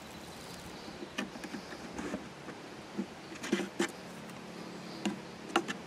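Light wooden knocks and clicks from frames in an empty beehive box being handled, scattered at first and bunching together in the middle and near the end.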